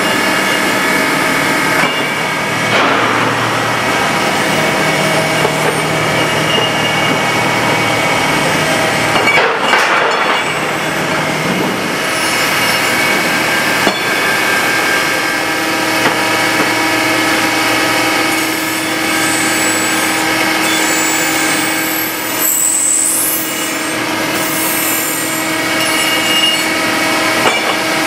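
Steady, loud din of running foundry cleaning machines, with constant humming tones and cast-iron parts rattling and scraping on the vibrating feed chutes.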